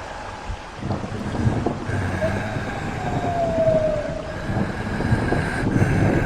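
Dark, rumbling, wind-like noise that builds from about a second in, with one thin moaning tone that slowly falls in pitch in the middle: a horror ambience sound effect.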